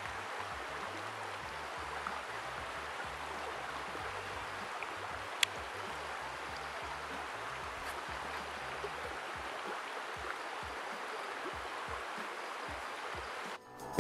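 Steady rush of a rocky mountain stream, with one sharp click about five seconds in; the water sound cuts off near the end.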